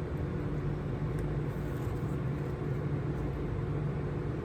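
A steady low machine hum under a constant hiss, unchanging throughout.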